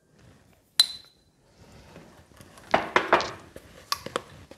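Kitchen utensils clinking against a glass mixing bowl while spices are added to flour. There is one sharp, ringing clink about a second in, a louder clatter around three seconds, and a few light clicks near the end.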